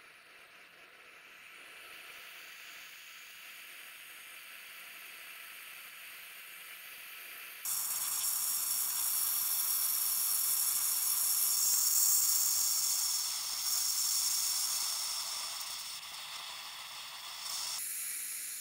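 H01-2 oxy-propane torch flame hissing steadily. About seven and a half seconds in, the hiss jumps abruptly much louder and higher, then eases off gradually toward the end, with a brief step up near the end.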